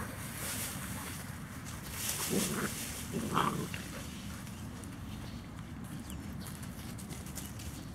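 Labrador puppies making two short vocal sounds a second apart, near the middle, over a steady background hiss.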